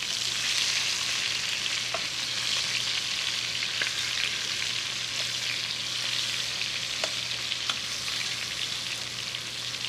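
Chicken thighs and drumsticks sizzling steadily as they brown in oil and butter in an enamelled pot, with a few light clicks of metal tongs as the pieces are flipped.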